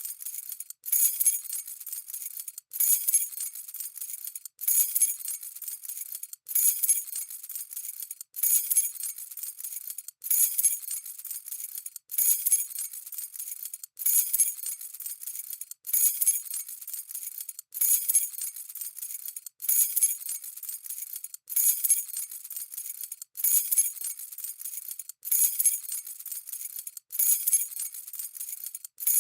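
A bunch of keys jangling in short shakes, one about every two seconds with the same pattern each time. Each shake opens with a bright clink and trails off into a lighter rattle before a short gap.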